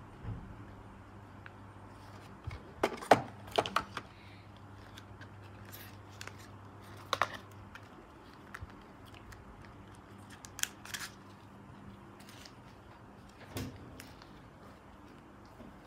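Hands handling phone packaging and accessories, with scattered clicks, taps and light rustles of cardboard, paper and a clear plastic phone case. The loudest is a quick run of sharp clicks about three seconds in.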